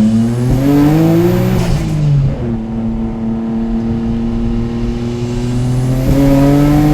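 Nissan Skyline GT-R R33's twin-turbo RB26 straight-six through a titanium exhaust, accelerating: the engine note climbs, drops at an upshift about two seconds in, holds almost steady, then climbs again near the end.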